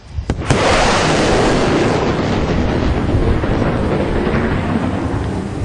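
Thunder: a sharp crack about half a second in, then a long, loud rumble that slowly dies away.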